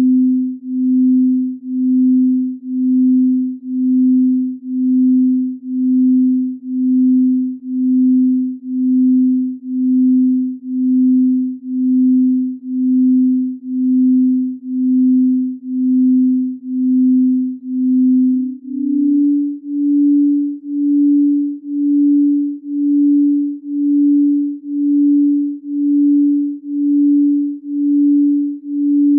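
A low, pure electronic sine tone pulsing about once a second, stepping up slightly to a higher pitch about 19 seconds in. It is a chakra-tuning tone.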